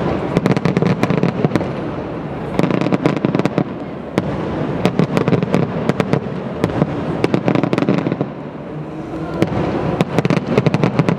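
Aerial fireworks display: many sharp bangs in quick, uneven succession over a continuous noise of bursting shells.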